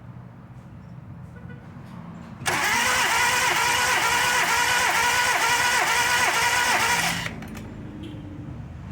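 Hyundai Matrix's starter cranking the engine for about four and a half seconds, beginning about two and a half seconds in and stopping abruptly, with an even pulse of about three compression strokes a second. This is a compression test on cylinder 2, with the gauge fitted and the needle climbing to about 130 psi.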